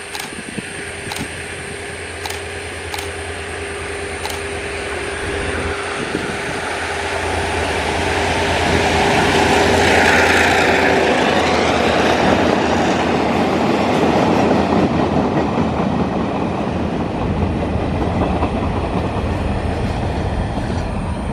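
Freight train hauled by diesel locomotive R162 passing by. A steady hum and rumble build to their loudest about ten seconds in as the locomotive goes past, then the wagons roll by with an even rumble and rushing rail noise.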